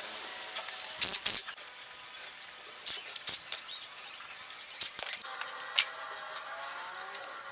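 Scattered sharp clicks and scrapes of hand work on metal parts, with a short squeak about halfway through and a faint steady hum from about two-thirds of the way in.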